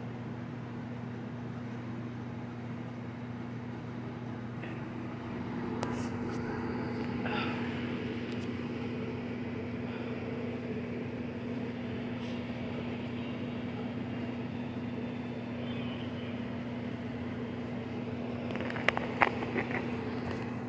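A steady low mechanical hum, with a few faint clicks in the middle and a short cluster of sharper clicks near the end.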